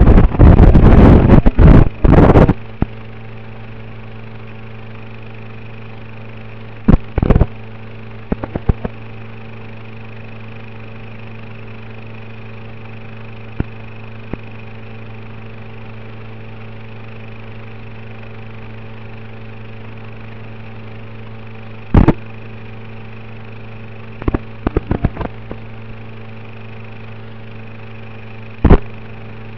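Steady electrical hum and buzz, the audio channel of an analog FPV video link as recorded by the goggles' DVR. It is broken by loud bursts of static crackle during the first couple of seconds, and by shorter bursts about a quarter of the way in, two-thirds in, and near the end.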